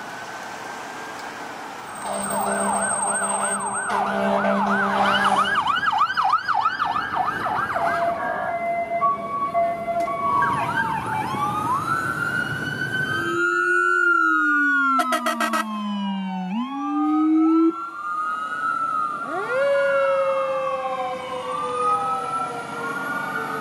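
A run of emergency-vehicle sirens, cut one after another. First a slow rising wail over traffic, then a fast yelp of about three sweeps a second, then a two-tone alternating siren. Finally several wailing sirens overlap above a low siren tone that falls and then climbs back up.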